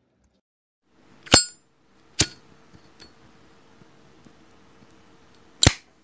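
Zippo lighter lid clicks: a loud metallic clink with a high ring about a second in, a second sharp click just under a second later, and a third clack near the end.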